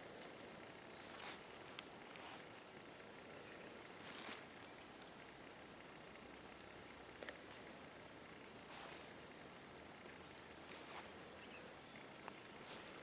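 Steady chorus of crickets, a continuous high-pitched trill, with a few faint crackles scattered through it.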